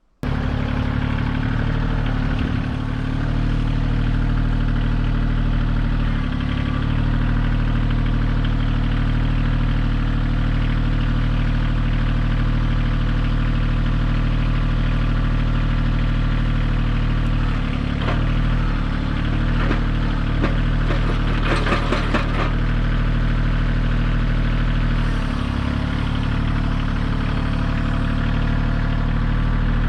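Kioti CK2610 compact tractor's diesel engine running steadily, its note dipping briefly three times. A quick cluster of clattering knocks comes about two-thirds of the way through.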